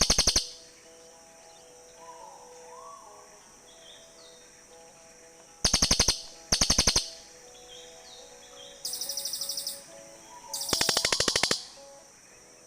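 Cililin birds calling back and forth in short, rapid, high-pitched chattering trills, five bursts of under a second each. The fourth is quieter than the others.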